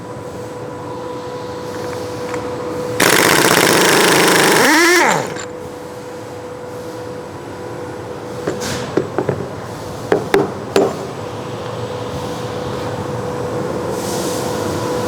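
A 3/4-inch pneumatic impact wrench on a 1 7/16-inch socket hammers loudly for about two seconds, breaking loose the large nut on a hydraulic intensifier, then winds down with a falling whine. A few light clicks follow, over a steady hum.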